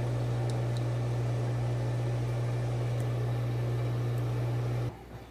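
A steady, loud low hum with a hiss behind it, like a small machine running, that cuts off abruptly near the end.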